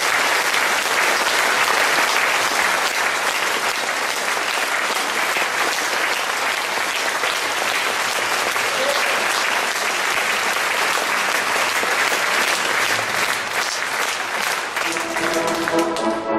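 Theatre audience applauding steadily. Near the end, the orchestra starts playing and the clapping fades under it.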